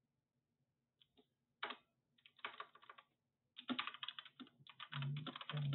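Computer keyboard being typed on: a few separate key presses about a second in, then quick bursts of typing that become dense and continuous from about three and a half seconds in.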